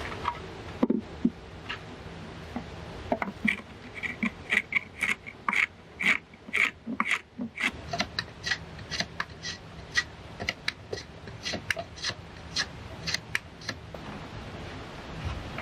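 Wooden hand plane shaving a board in quick, short strokes, about two a second, each a sharp scrape. A steady rush of noise underneath at the start.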